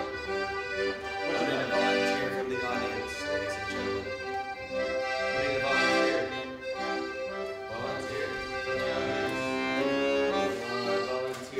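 Music with held chords that change every second or so.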